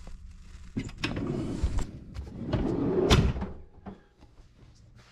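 Rustling and shuffling handling noise with a few light knocks and clicks, loudest in the middle and fading near the end.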